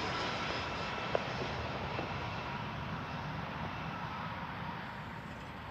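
Steady outdoor jet-aircraft roar, slowly fading, with a faint click about a second in.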